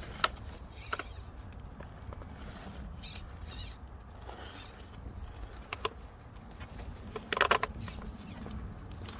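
Scale RC rock crawler clambering over bunker rubble: scattered short scrapes and clicks of grit and stones under its tyres, the loudest crunch about seven and a half seconds in, over a low wind rumble on the microphone.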